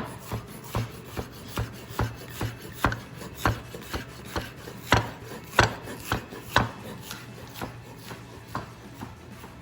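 Kitchen knife slicing through a halved Persian cucumber onto a cutting board, a steady rhythm of about two cuts a second that grows fainter near the end.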